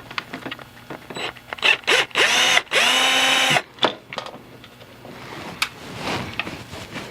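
Small electric screwdriver backing out a screw from the power window switch assembly: a couple of brief whirs, then one run of about a second and a half that spins up, holds steady and winds down, with small clicks of handling around it.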